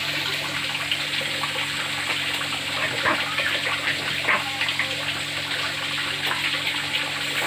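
Pieces of bird meat deep-frying in hot oil: a steady sizzle with scattered sharp pops and crackles.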